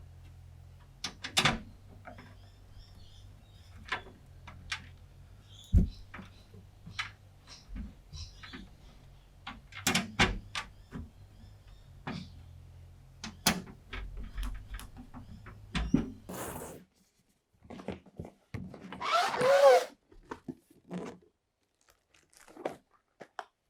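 Scattered clicks, taps and knocks of computer parts being handled and fitted into a PC case, with a brief squeaky scrape about three-quarters of the way through.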